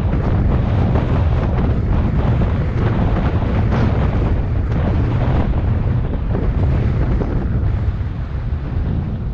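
Heavy wind buffeting the microphone of a bike-mounted action camera during a fast downhill run, a dense, steady rumble that eases slightly near the end.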